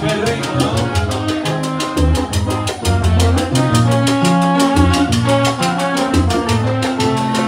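Live salsa band playing: congas and timbales over a stepping bass line, with a quick, steady ticking of percussion.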